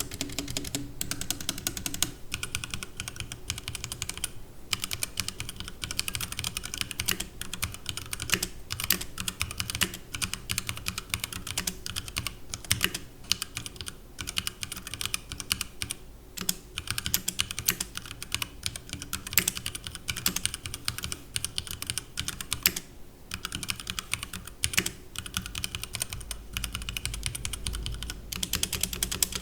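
Continuous fast typing on a HyperX Alloy Origins 60 mechanical keyboard with HyperX Red linear switches: a dense run of key clacks with a few brief pauses.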